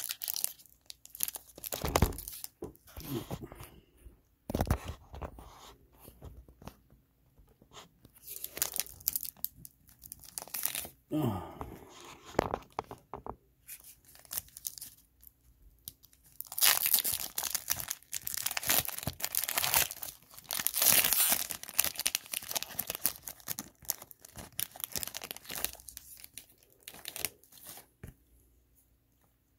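Foil trading-card pack wrapper crinkling and tearing as it is opened by hand, in scattered crackles, loudest and most continuous from about 17 to 22 seconds in.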